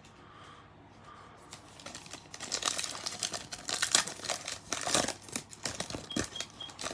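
Crinkling and crackling of a foil trading-card pack wrapper with cards being handled, a dense run of quick crackles starting about two seconds in.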